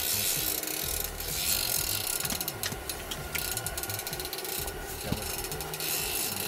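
Spinning reel on an ice rod clicking and whirring in a steady rapid ratchet as a hard-fighting tullibee is reeled up through the ice hole.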